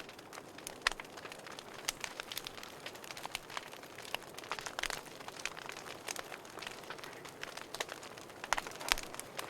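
Wood fire in a fireplace crackling: irregular sharp pops and snaps over a soft steady hiss, with a cluster of louder pops near the end.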